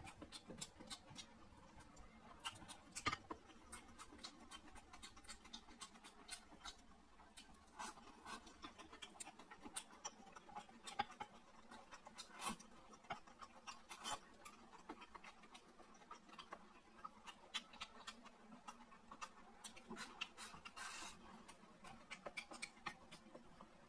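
Near silence with faint, irregular small clicks of eating: chopsticks picking at meat on a plate and rice bowl, and chewing.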